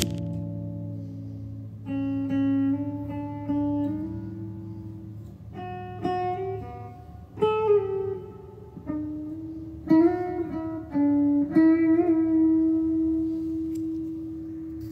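Solo guitar playing a slow closing phrase of single plucked notes, several of them bent in pitch, ending on one long held note: the outro of a song.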